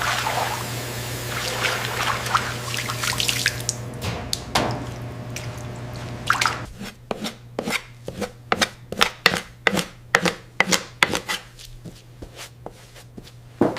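Wet dripping and splashing, then a regular run of sharp knocks or chops, about three a second, over a steady low hum.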